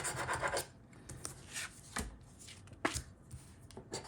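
Scratch-off lottery ticket being scratched. A quick run of rasping strokes comes at the start, then a few separate single scrapes.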